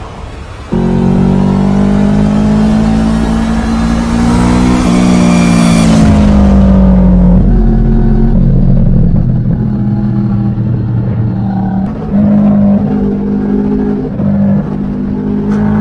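Kawasaki Vulcan motorcycle engine under way, its pitch rising as it accelerates and then falling back as the throttle eases, with wind rumble underneath. It starts abruptly just under a second in.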